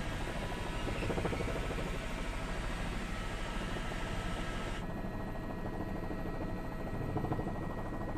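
Helicopter rotor and engine noise, a steady rumble with a rapid flutter; the hiss over it drops away suddenly about five seconds in.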